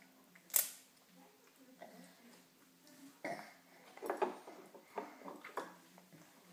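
A baby eating noodles straight off a plate with its mouth: short, separate mouth and eating noises, a sharp click about half a second in, and a run of them in the second half.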